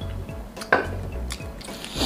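Wet, squishy mouth sounds of someone eating grilled meat, with a sharp smack about two-thirds of a second in and a smaller click a little later, over background music with a steady bass beat.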